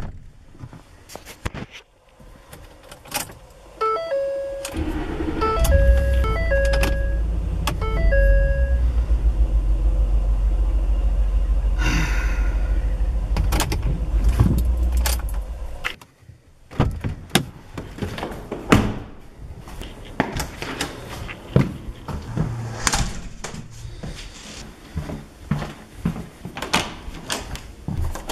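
Car sounds: a two-note chime dings repeatedly while the engine starts, then runs as a steady low rumble for about ten seconds and cuts off suddenly. Scattered clicks and knocks, like keys and doors, follow.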